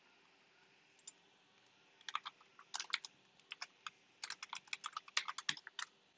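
Quiet computer keyboard typing: a quick run of keystroke clicks starting about two seconds in, with a brief pause in the middle.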